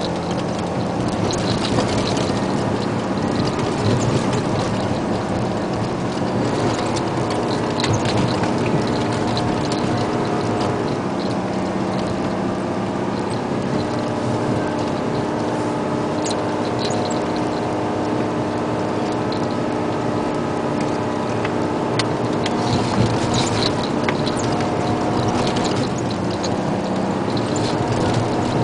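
Isuzu Giga dump truck's diesel engine running steadily, heard from inside the cab, with scattered rattles and clicks from the cab and the gravel track. The engine note changes pitch about 11 seconds in and again near 25 seconds.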